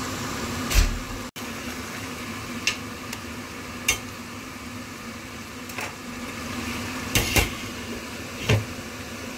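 Utensil and lid clinks on a steel cooking pot, about seven short knocks, the loudest about a second in, over a steady low hum; near the end a glass lid is set onto the pot.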